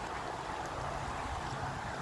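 Steady rushing noise of the river and wind, with a low, even motor hum that grows stronger past the middle, from a small outboard-powered boat out on the river.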